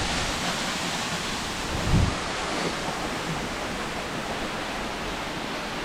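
Steady rushing of a nearby waterfall, with a brief low buffet of wind on the microphone about two seconds in.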